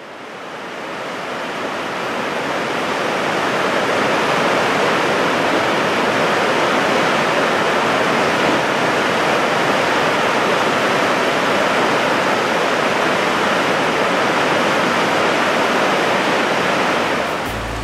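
Whitewater river rapids rushing steadily, fading in over the first few seconds.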